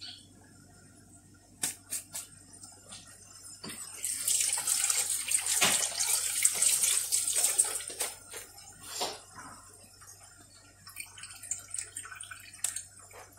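Kitchen tap running for about four seconds, starting about four seconds in, with a few light knocks and clicks before and after.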